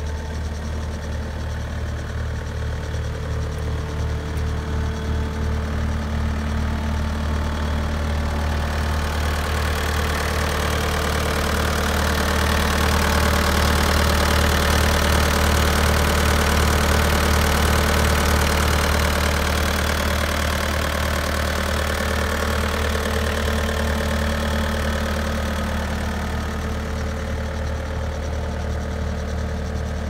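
Bobcat A300 skid steer's 81 hp Kubota turbo diesel idling steadily. It grows louder near the middle, where the rear engine compartment is open, then eases off again.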